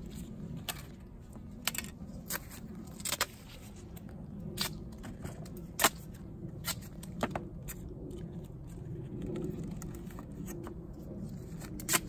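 Scattered sharp clicks and crinkles of duct tape and a plastic coffee-can-lid hood being handled and pressed onto a styrofoam-insulated beehive, over a steady low outdoor rumble.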